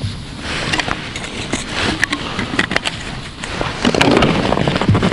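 Rustling and scattered light clicks of hands handling gear: a plastic bottle and a plastic tackle box, with the rustling getting louder about four seconds in.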